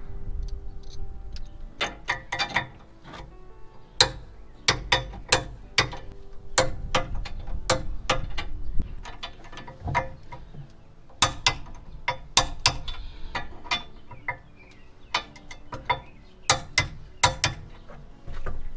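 Ratcheting socket wrench clicking in short irregular runs as the bolts of a gooseneck hitch's mounting brackets are tightened.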